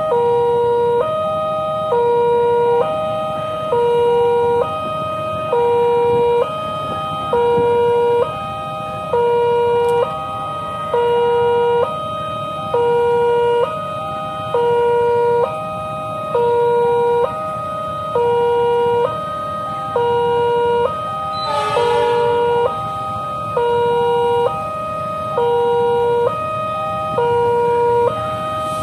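Electronic railway level-crossing warning alarm sounding two alternating tones, low then high, each held about a second, repeating steadily. A short higher burst cuts across it about three-quarters of the way through.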